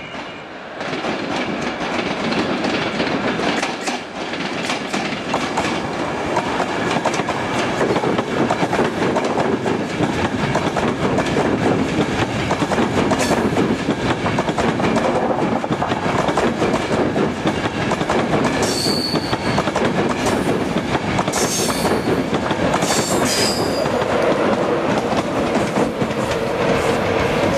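InterCity 225 train, a Class 91 electric locomotive with Mark 4 coaches, rolling slowly out of the station with a steady rumble of wheels on rail and repeated knocks over joints and pointwork. Three short, high-pitched wheel squeals come close together about two-thirds of the way in.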